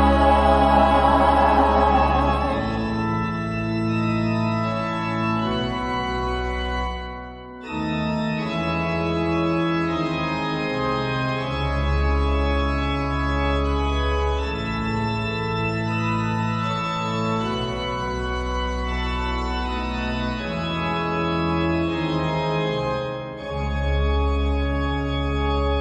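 Music only: a slow instrumental passage of sustained keyboard chords over a deep bass, the chords changing every few seconds, with a short break about seven and a half seconds in.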